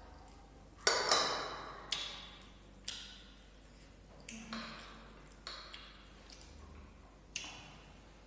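Metal spoon clinking and scraping against a ceramic plate while rice is scooped up. There is a series of sharp clinks with a brief ring, the loudest about a second in.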